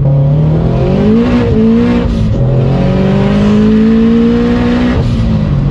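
Turbocharged Scion FR-S flat-four engine accelerating, heard from inside the cabin. The revs climb, drop sharply at a gear change a little after two seconds in, climb again, then fall back near the end.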